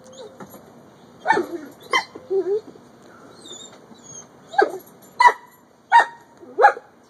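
Playful dog barks and yips from a Doberman and her 9-week-old puppies: about seven short, sharp calls in quick, irregular succession, with faint bird chirps in a lull about halfway through.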